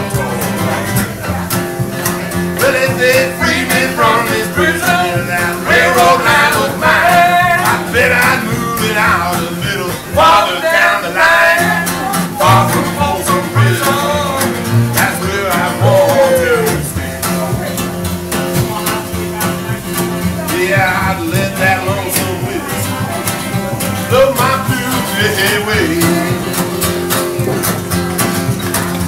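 Live acoustic duo: a strummed acoustic guitar and a plucked upright bass under a man singing a song.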